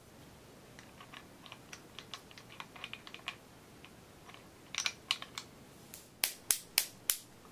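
Small steel pistol parts clicking and tapping as a 1911 pistol is reassembled by hand: scattered faint clicks at first, then a few sharper metallic clicks in the second half.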